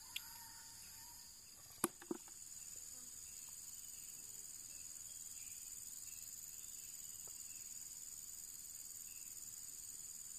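Steady high-pitched insect chorus, with two sharp clicks about two seconds in.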